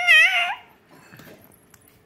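Baby's short, high-pitched squeal with a wavering pitch, ending about half a second in.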